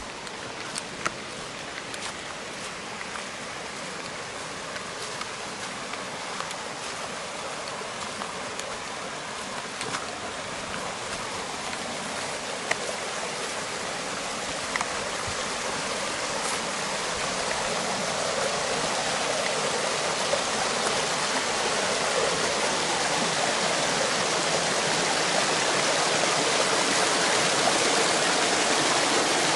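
Shallow rocky stream rushing and splashing over stones, a steady hiss of water that grows gradually louder as it is approached. A few light clicks in the first half.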